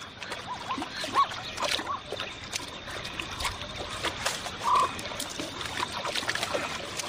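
Wildebeest and zebras drinking at a river's edge: water trickling and splashing, with scattered clicks and a few short chirps, the clearest about halfway through.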